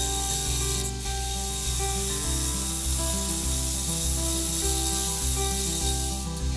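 Gouge cutting a spinning crepe myrtle blank on a wood lathe: a steady shearing hiss from the tool edge on the wood. Background music with a bass line and melody plays under it.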